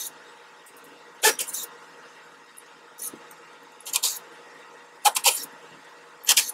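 Short, sharp hits from a hand tool working a deck railing post, roughly one a second, some coming in quick runs of two or three.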